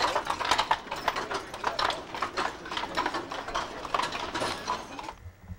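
Horse's hooves clip-clopping on cobblestones with the rattle of a horse-drawn carriage, fading as it moves away and cut off suddenly about five seconds in.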